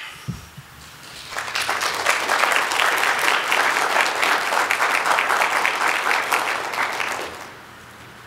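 Audience applauding. The clapping starts about a second in, holds steady for several seconds and dies away near the end.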